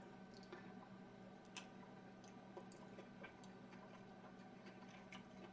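Near silence: room tone with a faint steady hum and scattered faint, irregular clicks.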